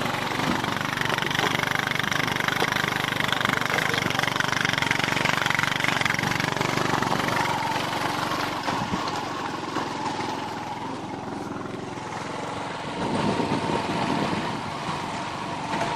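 Vehicle engine running on an off-road drive, with a dense, rushing noise over it.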